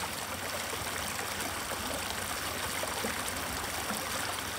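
Steady trickling and lapping of shallow water along a muddy, oyster-strewn shoreline, an even hiss with a few faint small ticks.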